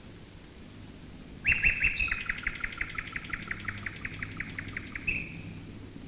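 Common nightingale singing one phrase that starts about one and a half seconds in: a few loud notes, then a fast run of repeated notes at about six a second, ending near the end on one drawn-out note that fades. Under it runs the steady low drone of bomber engines overhead.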